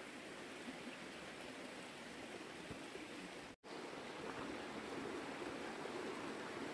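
Steady rushing outdoor background noise, even and without distinct events, that cuts out for an instant about halfway through and comes back slightly louder.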